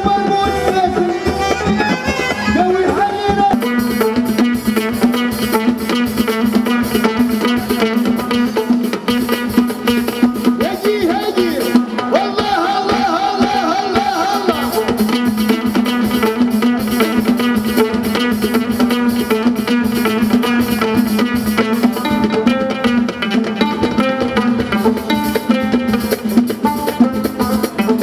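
Live Moroccan popular music played by an amplified band with electric guitar, keyboard and drum kit, with a singer. A quick, steady drum beat kicks in about three and a half seconds in and carries on.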